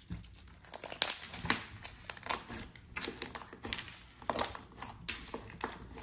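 Clear slime full of small stress-ball beads and glitter being squeezed and kneaded by hand, giving irregular crackling and popping, mostly from about a second in.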